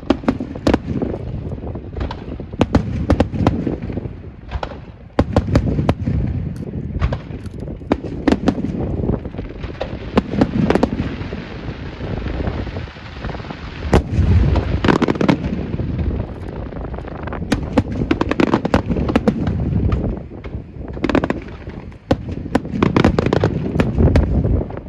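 Fireworks display: a rapid, overlapping string of sharp bangs over a low rumble, with a stretch of hissing crackle in the middle.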